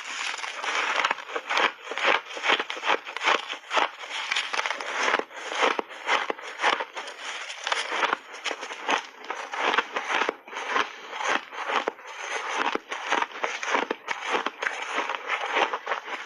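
Refrozen flavoured ice being bitten and chewed, a continuous run of irregular crisp cracks and crunches.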